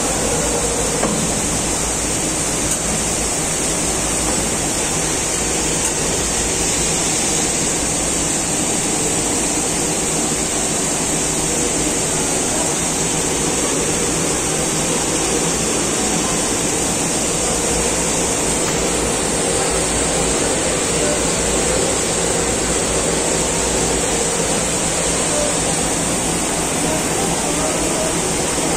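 Steady whirring hiss of machinery running, unchanging throughout with no knocks or pauses.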